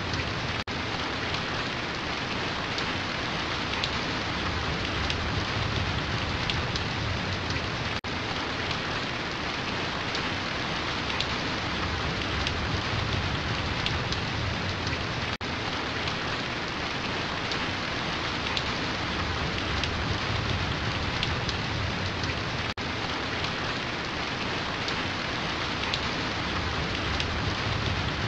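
Steady rain, a dense even hiss of falling drops on surfaces, broken by a momentary gap about every seven seconds.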